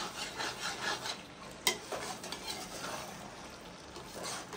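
Spoon or spatula stirring and scraping thick jackfruit curry in a kadhai, in quick strokes that ease off after the first second, with a faint sizzle and one sharp metal clink about one and a half seconds in.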